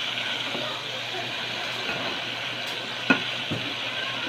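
Coconut worms frying in hot oil in a metal pot: a steady sizzle while a metal spatula stirs them. There is one sharp clink of the spatula against the pot about three seconds in.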